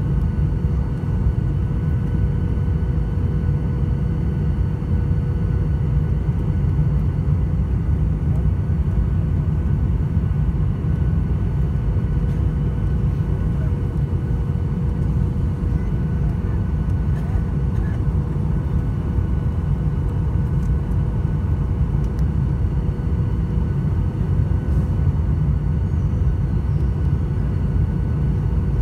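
Jet airliner cabin noise heard from a window seat beside the turbofan engine on approach to landing: a steady low rumble of engine and airflow with a few faint steady tones from the engine above it.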